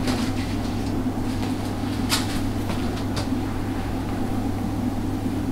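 Milling machine table being wound across by its handwheel and leadscrew, giving a few sharp clicks about two and three seconds in, over a steady low hum.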